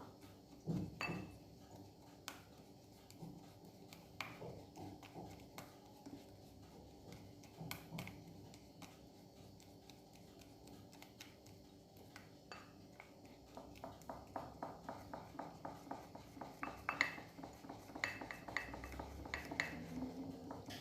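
A utensil stirring a thick hair-dye paste of egg yolk, coffee, peroxide and bleach powder in a bowl, tapping and scraping against the bowl. Occasional taps at first, then from about halfway a steady stirring rhythm of about two strokes a second.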